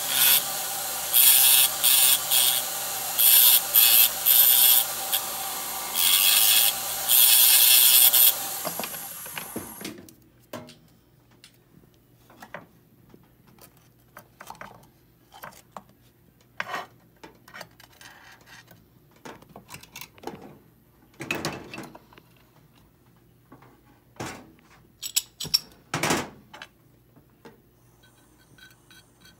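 Jeweller's rotary handpiece with a small disc running steadily, with repeated loud grinding bursts as the disc bites into the 14k gold bangle, then spinning down about nine seconds in. After that, only scattered light clicks and knocks of tools and the bangle being handled on the bench.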